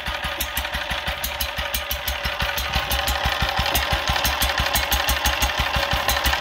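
Fowler PA 1.5 hp single-cylinder petrol stationary engine running steadily with a quick, even exhaust beat through its silencer.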